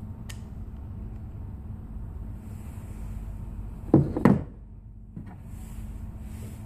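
Two loud sharp clacks of Walther P22 pistol parts being handled, about a third of a second apart, with a light click shortly after, over a steady low hum.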